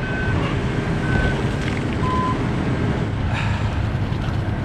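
Three short electronic beeps about a second apart in the first two and a half seconds, the third lower in pitch, over a steady low rumble.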